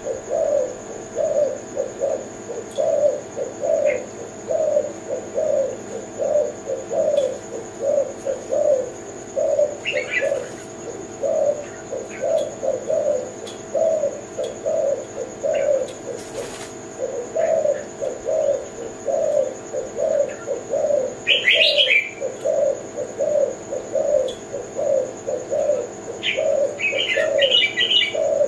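Spotted dove (tekukur) cooing: a long, even run of low repeated coos, roughly one to two a second. Short higher chirps from another small bird break in a few times, most near the end.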